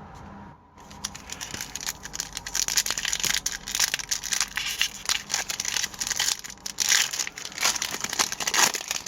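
Crinkling and tearing of a foil hockey card pack wrapper being torn open and handled, an irregular crackle that starts about a second in.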